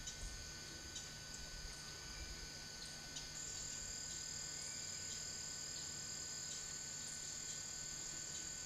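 Faint, steady high-pitched trilling of insects, with a second, louder insect voice joining about three seconds in. Scattered faint ticks run through it.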